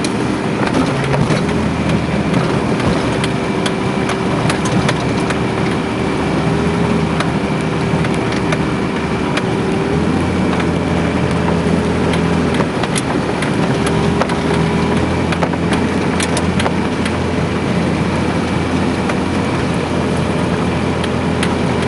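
An off-road 4x4 vehicle's engine running steadily while driving, with scattered knocks and rattles.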